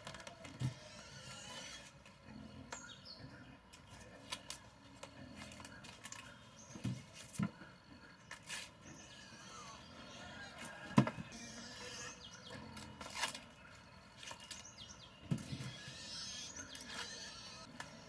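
Irregular knocks and thumps a few seconds apart, the loudest about two-thirds of the way through, over a faint steady outdoor background.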